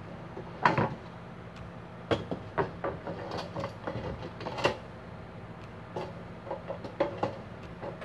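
Irregular sharp clicks and knocks of hard plastic as hands work at an Arno Silence Force desk fan's blade and housing. The loudest come about a second in and a little past the middle.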